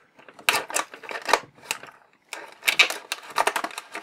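Craft knife slicing along the edge of a plastic blister pack on its card backing: a run of short, sharp scratching clicks, with a brief pause about two seconds in.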